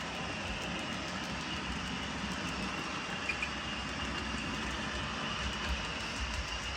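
HO-scale model train with passenger cars running on track: a steady motor whine and the rumble of wheels on the rails.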